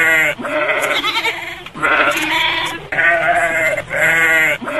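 A goat bleating loudly over and over: about five long calls, one after another, with short gaps between them.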